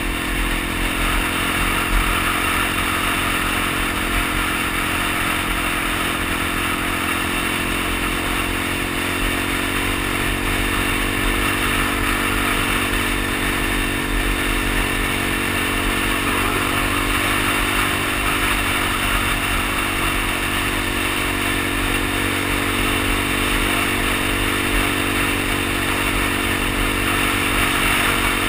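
Suzuki DR-Z dual-sport motorcycle's single-cylinder four-stroke engine running steadily at road cruising speed, heard from the rider's seat with wind rushing past.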